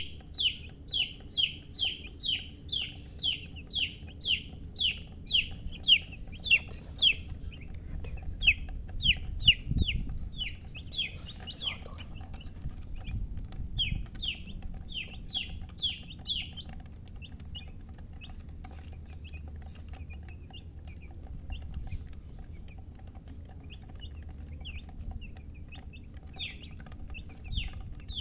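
Baby chicks peeping: a rapid run of loud, high, downward-sliding peeps, about two to three a second, that thins out after the first half into scattered single peeps.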